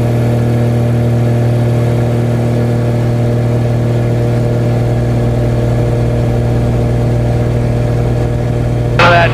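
Extra 300 aerobatic plane's six-cylinder Lycoming engine and propeller running steadily in flight at an even pitch. A voice starts briefly right at the end.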